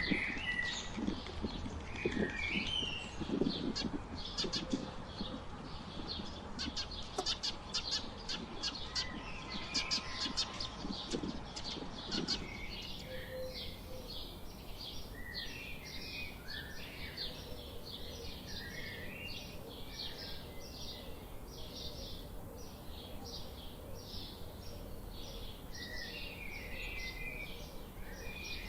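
Several small songbirds chirping and twittering over a steady background hiss. About halfway through, the recording changes to a denser run of quick, evenly repeated high chirps.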